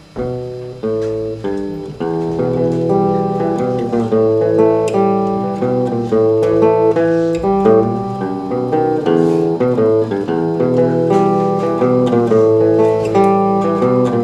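Guitar played live by picking: a few separate notes at first, then a steady, flowing run of plucked notes, low and high ones sounding together.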